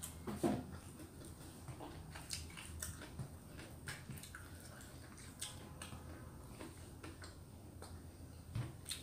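A person chewing stir-fried fern greens eaten by hand, with soft wet mouth sounds and a few small clicks, the loudest about half a second in and another near the end.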